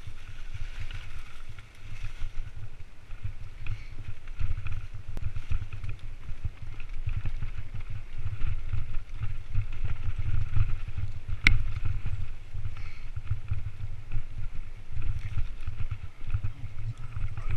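Mountain bike descending a leaf-covered dirt trail, heard through a helmet-mounted action camera: wind buffeting the microphone with tyre rumble and bike rattle over the ground, and one sharp click a little past halfway.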